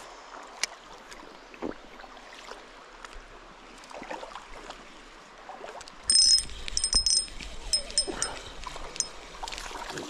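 Creek water running steadily. About six seconds in, a spinning reel starts whirring in short, repeated spurts with a high whine, mixed with handling rubs close to the microphone, as a hooked fish is played in.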